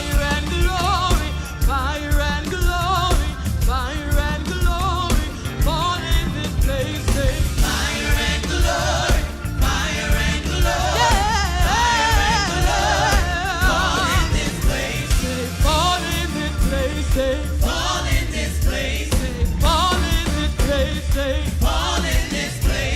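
Live gospel worship music: singers with a band, a strong steady bass under the voices.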